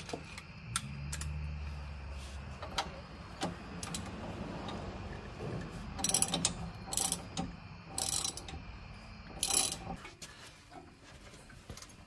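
Hand ratchet wrench clicking as suspension bolts are tightened, in short runs, with several louder strokes in the second half. A low steady hum underneath stops near the end.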